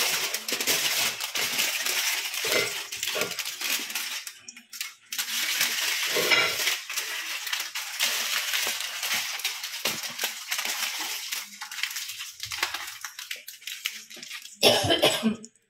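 Aluminium foil crinkling and rustling as it is folded and pressed by hand around a fish, with a louder burst of crinkling near the end.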